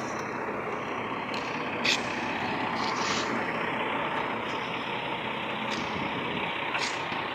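Iveco 440 truck running with a steady hiss of air escaping from its broken air-compressor pipe, with a few short clicks, the loudest about two seconds in.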